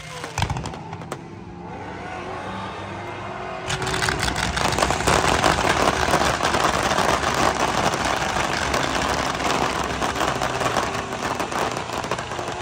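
Fireworks display: a few scattered pops at first, then from about four seconds in a loud, dense, continuous crackling of many bursts at once, with car engines running underneath.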